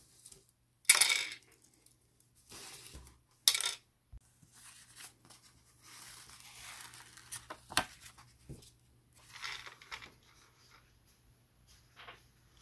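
Small plastic food pieces dropped into a plastic cup with two short clatters, about one and three and a half seconds in. Then the backing paper peeled off a paper lid sticker with a soft tearing rustle, broken by one sharp tap near the eight-second mark.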